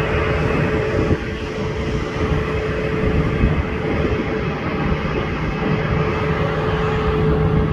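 Jet airliner engines running at an airport, a steady rumble with a constant whine.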